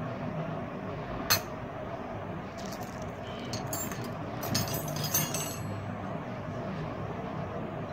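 Metal kara bracelets clinking against one another as they are handled in a pile: one sharp clink about a second in, then a run of lighter clinks from about three to five and a half seconds, over a steady background hiss.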